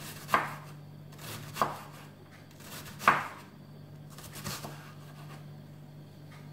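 Chef's knife chopping an onion into cubes on a wooden cutting board: about four separate knocks of the blade hitting the board, the loudest about three seconds in.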